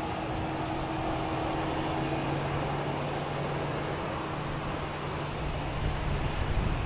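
Airport apron ambience: a steady wash of machinery and vehicle noise with a faint engine-like hum, as ground equipment works at the 747 Dreamlifter freighter while a 787 wing is lifted into it. An uneven low rumble swells near the end.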